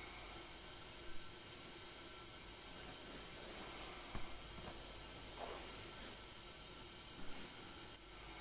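Tea kettle on its furo brazier simmering with a faint, steady hiss. A few light knocks of utensils being handled, one as a tea bowl is set down on the tatami about four seconds in.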